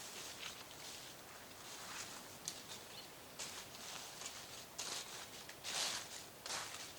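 Footsteps of someone walking over rough ground, with rustling: uneven soft crunches about one or two a second, the loudest near the end.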